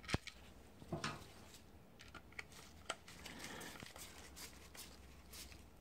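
Faint scattered clicks and taps of a Makita lithium-ion battery pack's plastic casing being handled while its cover screws are driven in with a hand screwdriver.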